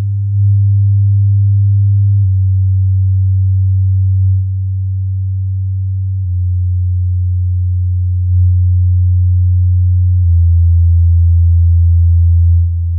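Low, steady electronic tones that change to a new pitch about every two seconds, like a slow drone.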